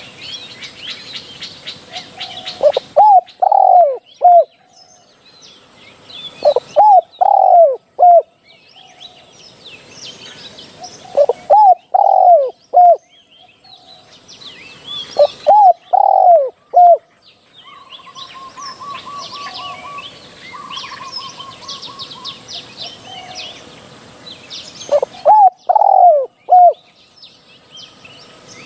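Spotted dove cooing, a phrase of about four quick swooping coos repeated five times a few seconds apart. Small birds chirp faintly in the background, with a short fast trill about 18 seconds in.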